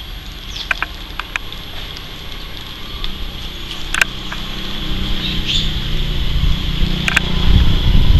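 Forest ambience: a steady high-pitched insect drone, with a few short sharp clicks and a low rumble that grows louder in the second half.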